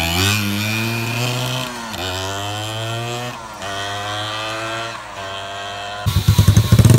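Honda EX5 four-stroke single-cylinder engine, built to class-one spec with a 58 mm big-bore block, accelerating hard away. Its pitch climbs in each gear and drops back at three upshifts as it pulls into the distance. About six seconds in, a louder, choppy engine sound takes over close by.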